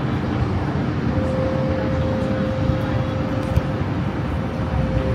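Steady low roar of distant city traffic, with a faint steady hum that comes in about a second in.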